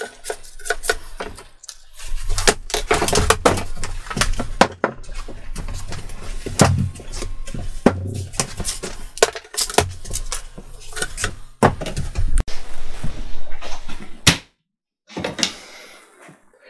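Irregular knocks, clatter and rubbing of thin MDF cut-out pieces being handled, snapped free and set down on a CNC router table.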